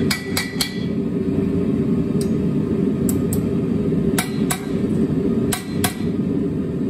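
Light hammer taps on a hot steel scroll on the anvil, mostly in pairs a few seconds apart, the first few ringing briefly, as the scroll is tapped round. A steady low roar runs underneath.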